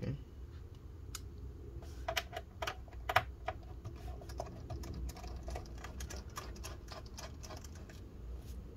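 Small irregular clicks and ticks of a precision screwdriver backing pentalobe screws out of a MacBook Pro's aluminium bottom cover, with the screws being set down on the desk. The sharpest click comes about three seconds in, over a low steady hum.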